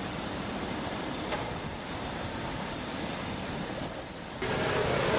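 Steady outdoor background noise, a rumble and hiss with no clear single source. It jumps suddenly louder about four seconds in.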